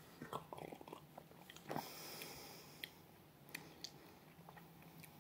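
A person drinking from a plastic bottle: a run of quick gulps and swallows, then a breath out and a few soft smacking clicks of the lips while tasting.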